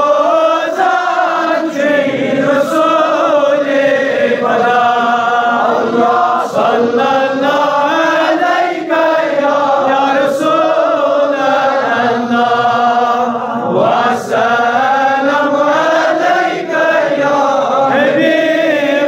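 A man chanting a devotional verse solo into a microphone, in long melodic notes that rise and fall, with brief pauses for breath between phrases.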